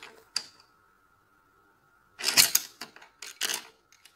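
Wooden coloured pencils clattering against each other on a wooden table as a hand rummages through them and grabs a few: a single click about a third of a second in, a loud burst of clattering a little past halfway, then two shorter rattles.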